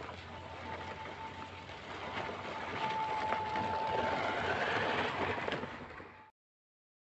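RC scale crawler (HB ZP1001, a Traxxas TRX-4 clone) driving over sandy ground: the electric motor and gearbox give a steady whine over the crackle of the tyres on sand and grit, getting louder as the truck comes close. The sound cuts off suddenly near the end.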